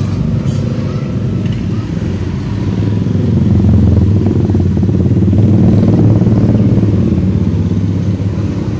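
A motorcycle engine running close by, a steady low hum that swells louder from about three seconds in and eases off near the end.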